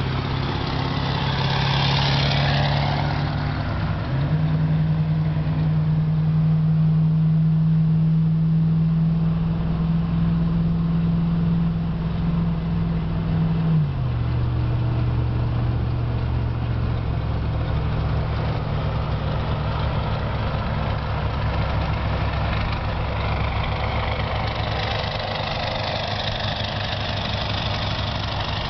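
Pickup truck driving at highway speed beside a moving car: a steady engine and exhaust drone with tyre and wind hiss. The drone steps up in pitch about four seconds in and drops back down about fourteen seconds in.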